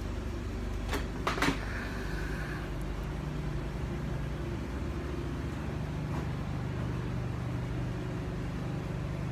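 Steady low machine hum, with two sharp knocks about a second in and a short high squeak just after them.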